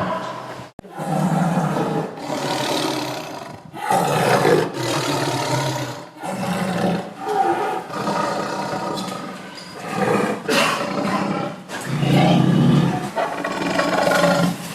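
Tiger roaring and growling: a string of short roars, each a second or two long, some breaking off abruptly.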